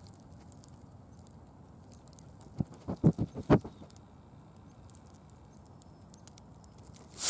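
Red wolf sniffing and nosing right at the camera: a quick run of about five dull puffs and bumps on the microphone, about three seconds in, against a faint outdoor background.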